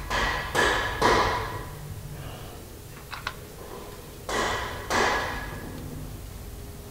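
A few sharp metal knocks with short ringing tails, two close together near the start and two more around four to five seconds in, as hands work at the truck's clutch housing from the pit below.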